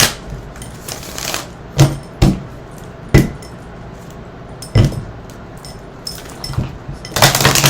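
Several separate sharp taps and knocks of small hard objects handled on a table, a second or so apart, then a quick run of clatter near the end.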